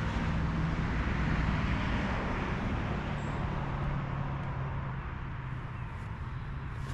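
Road traffic: a vehicle going by, a low steady hum with tyre hiss that swells over the first couple of seconds and then slowly fades.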